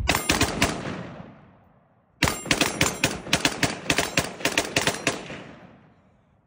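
AR-style rifle fired in rapid strings on a binary trigger. A quick run of about five shots, a pause, then a longer string of about fifteen shots at roughly five a second, with the echo fading away after each string.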